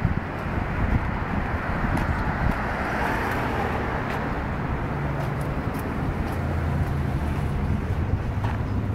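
Steady road-vehicle noise, a continuous rumble with wind buffeting the phone's microphone and a faint low engine hum in the second half.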